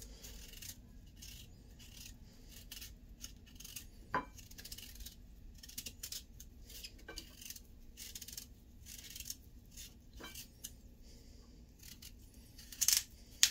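Kitchen knife peeling a white radish: repeated short, crisp scraping strokes as the blade shaves strips of skin off the firm root, with a few sharper clicks and two louder ones near the end.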